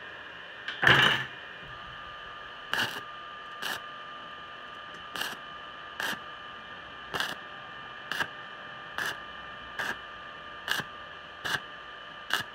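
Stick welding on thin-walled square tube: the arc is struck with a loud crackle about a second in, then struck and broken again in short spitting bursts about once a second, stitching the rod across a wide gap in the joint. A steady hum runs underneath.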